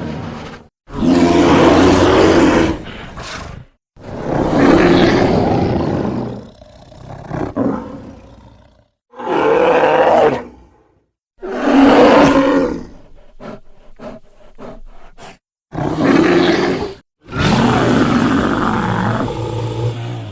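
A string of animal roar sound effects, about six separate roars, each lasting one to three seconds and cut off abruptly into silence before the next one starts. These are roars used for an animated film character.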